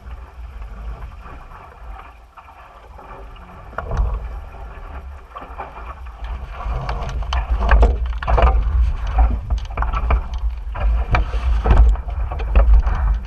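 Wind buffeting the microphone with a low rumble, and water rushing and splashing against a small sailboat's hull. Both grow louder and choppier about halfway through.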